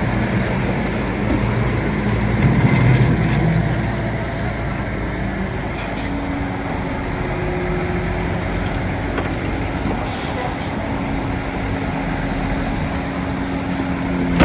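Bulldozer's diesel engine running steadily. About five seconds in, the engine pitch rises and holds, and a few short sharp metallic clanks or squeaks come through.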